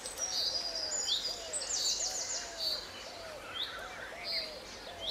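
Birdsong from several birds: high chirps and short whistles over a low call repeated about once or twice a second.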